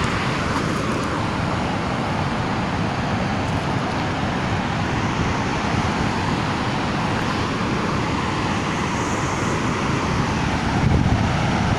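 Floodwater rushing steadily out through open dam flood gates, a continuous loud wash of noise.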